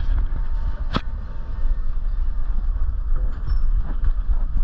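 Steady low rumble of wind and movement on a dog-harness-mounted GoPro's microphone as the dog walks, with a sharp click about a second in.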